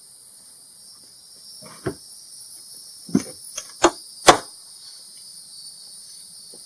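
Crickets chirring steadily in the background, with a few sharp wooden knocks and clatters about two to four seconds in as the folding wooden workbench is handled, the loudest two close together near the middle.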